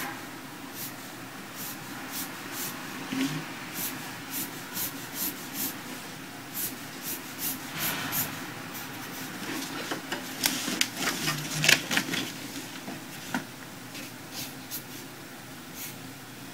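A pen scratching across paper in quick short strokes as it rules staff lines, about two strokes a second, coming thickest about two-thirds of the way through and then thinning out.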